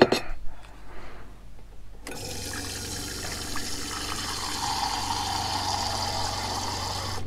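Water running from a Dometic sink faucet into a small stainless steel pot, starting about two seconds in, with the camper's water pump humming steadily underneath while the tap is open.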